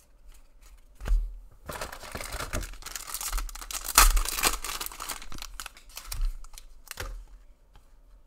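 A trading card pack's wrapper being torn open and crinkled, a rustling stretch that peaks about four seconds in, with scattered sharp clicks and rustles of handling.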